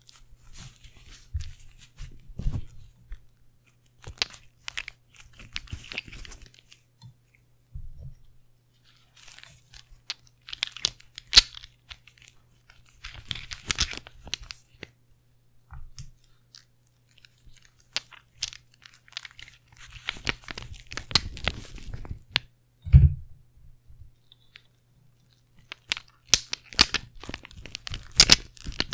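Close-miked ASMR handling of glass nail polish bottles and plastic lipstick tubes in leather gloves: bursts of clicks, taps and scratchy rubbing with quiet gaps between, and one louder thump about two-thirds of the way through. A faint steady low hum runs underneath.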